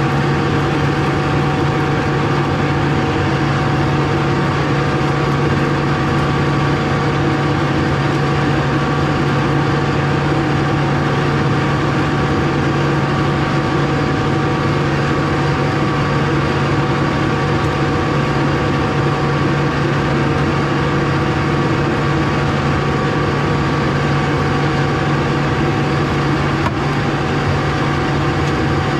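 Tractor engine running steadily at an unchanging speed, a constant hum.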